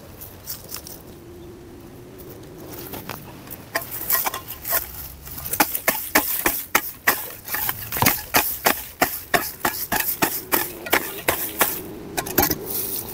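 Hoe blade chopping into grass clumps and dry soil: a quick series of sharp strikes, about three a second, beginning a few seconds in.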